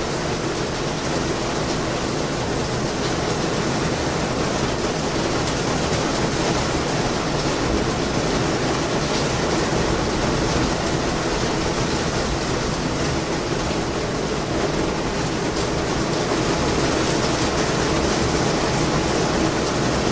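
Steady rain falling, a dense even hiss with no letup.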